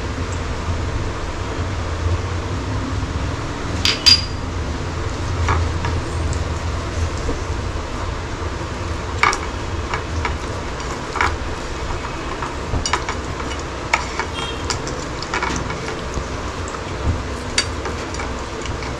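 Scattered light clicks and knocks of a small glass bowl and fingers against a plate as turmeric is sprinkled and rubbed into whole fish by hand, with one sharper clink about four seconds in. A steady low hum runs underneath.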